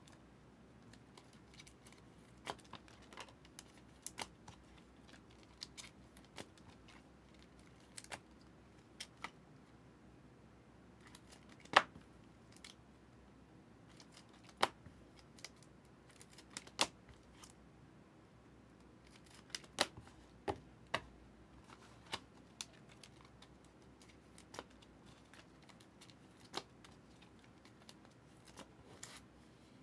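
Scattered sharp clicks and snaps of stiff Optic football trading cards being flipped and handled one after another, at irregular intervals, the loudest about twelve seconds in.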